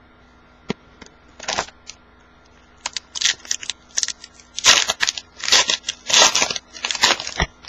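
Foil wrapper of a football-card pack crinkling as it is torn open, then cards being handled, in a run of crisp rustles and clicks through the second half.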